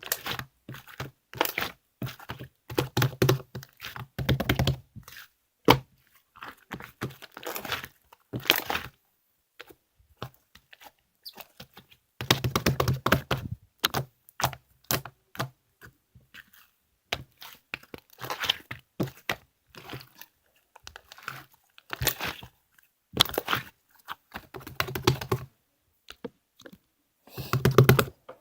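Irregular bursts of close-up crinkling, crackling and crunching clicks, separated by short pauses.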